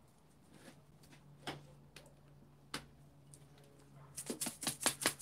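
Small object worked in the hands close to the microphone: a few scattered clicks, then from about four seconds in a quick, even run of sharp clicks, about six a second, over a faint steady hum.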